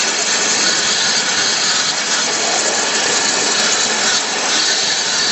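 Abrasive waterjet from a Flow waterjet cutting head cutting through 80 mm thick glass: a loud, steady hiss.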